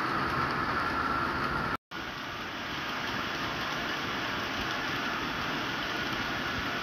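HO-scale model train wagons rolling along the track: a steady, noisy running sound with a faint high whine. It cuts out completely for an instant about two seconds in, then goes on steady and a little softer.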